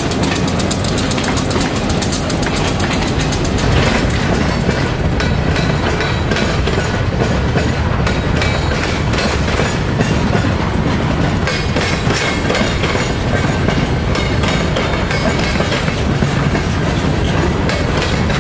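Dubbed-in freight train sound: railcars rolling past at a steady pace, wheels clicking rapidly over rail joints above a continuous rumble.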